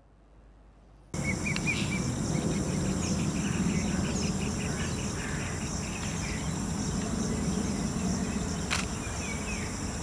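Outdoor woodland ambience that starts about a second in: steady insect trilling, a run of quick repeated chirps at about four a second, and a few faint bird chirps over a steady low noise, with one sharp click near the end.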